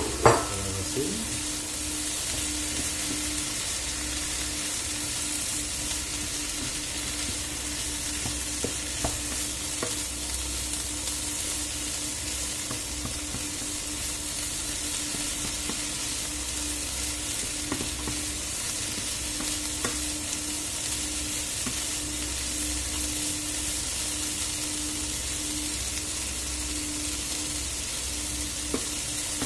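Chopped courgette, broccoli and onion sizzling in oil in a non-stick frying pan while a wooden spatula stirs them. There is a clatter right at the start, then a few light taps of the spatula against the pan over a steady low hum.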